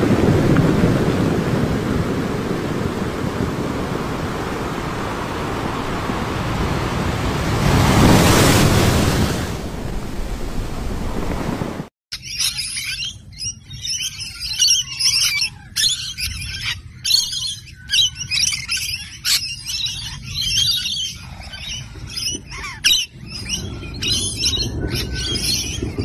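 Steady rushing noise of wind and sea, swelling briefly about eight seconds in, then from about halfway a flock of lorikeets, rainbow and scaly-breasted, screeching and chattering in dense overlapping high-pitched calls.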